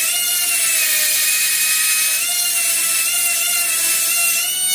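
High-speed rotary grinding tool running and grinding on a chainsaw carburetor's throttle shaft, a steady high-pitched whine that sags slightly in pitch and rises again about two seconds in.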